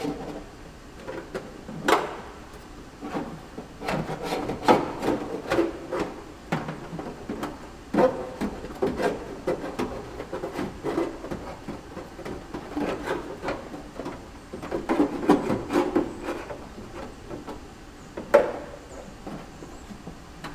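Electrical wires and a feed tube being pushed and pulled through the inside of a Cessna 172's aluminium wing: irregular scraping and rubbing in spurts, with scattered knocks, the sharpest about 2 seconds in and near the end.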